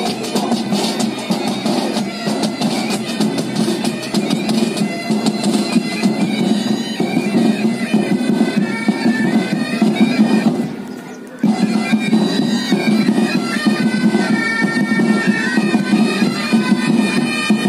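Pipe band of bagpipes and drums playing a march: a steady bagpipe drone under the chanter melody, with drum strokes beneath. About ten seconds in the sound fades and drops out for a moment, then comes back abruptly.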